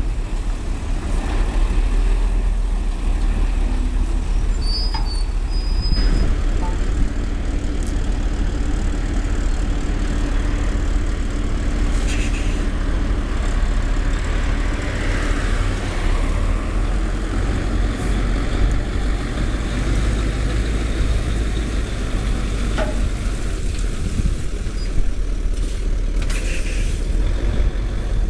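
Heavy diesel engine running steadily with a deep rumble, with a few short clicks and hisses over it.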